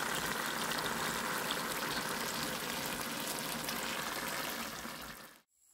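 Fish frying in hot oil in a pan on a wood-fired stove: a steady sizzle full of fine crackling, cutting off suddenly near the end.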